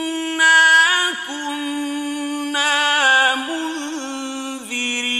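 A male reciter chanting the Quran in the slow, melodic mujawwad style, holding long drawn-out notes with ornamental turns and steps in pitch, swelling louder twice.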